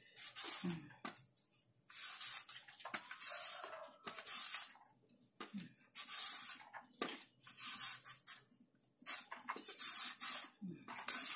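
Cucumber being grated into strips on a handheld plastic julienne grater: a rasping scrape each time it is pushed across the blades, about once a second.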